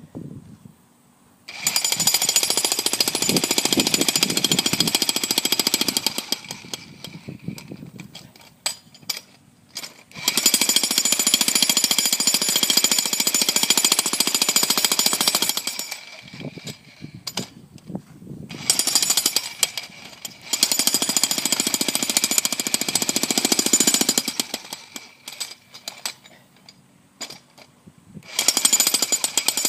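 Jackhammer running in four bursts of several seconds each, with short pauses between them as it is stopped and restarted. The bursts are a dense, rapid hammering with a steady high ringing.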